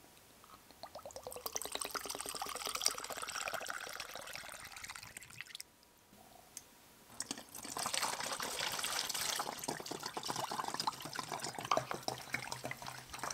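Isopropyl alcohol poured from its bottle into a plastic measuring cup, the pitch of the pour rising as the cup fills. After a short pause about five and a half seconds in, it is poured again through a silicone funnel into a bottle.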